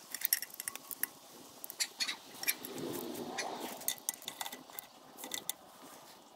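Gearbox being worked into line with the engine: irregular light metallic clicks and knocks, with a stretch of scraping about two and a half to four seconds in.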